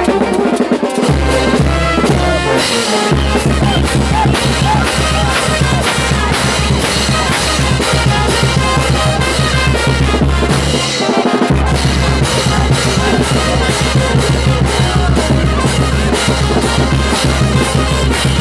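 Live brass band playing dance music: sousaphones carry a steady bass line under brass and a regular drum beat. The bass drops out for a moment about eleven seconds in.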